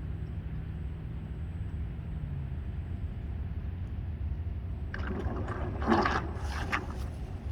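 Water splashing and gurgling in irregular bursts, starting about five seconds in, over a steady low rumble.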